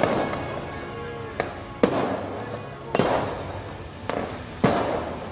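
A run of sharp, echoing bangs, about five of them, a second or so apart.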